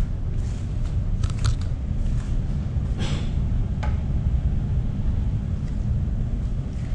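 Steady low rumble of a large car ferry's machinery heard inside its passenger lounge, with a few light clicks and rustles about a second in and again about three seconds in.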